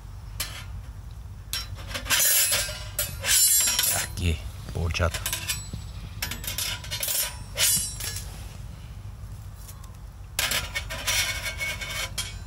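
Metal grill grate clinking and scraping as it is fitted onto a canned campfire, in three short spells of clatter.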